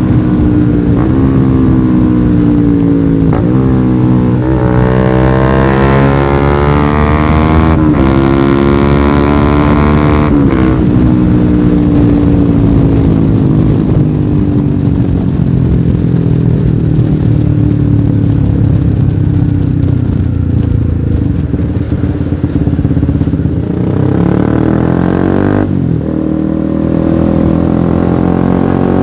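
Honda CBR150R single-cylinder engine with an aftermarket exhaust, ridden on the road. It accelerates twice in the first ten seconds with a sharp pitch drop at each gear change, then winds down slowly for about ten seconds before picking up speed again near the end.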